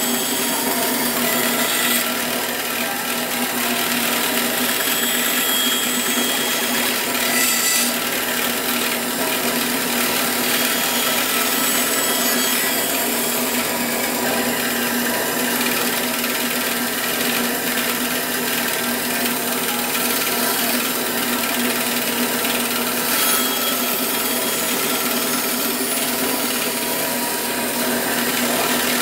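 Bandsaw running steadily and cutting, a continuous motor hum under the hiss of the blade.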